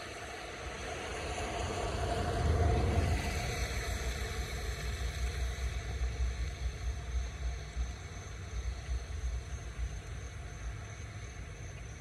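A road vehicle passing by: its noise swells to a peak about three seconds in and fades away, leaving an uneven low rumble.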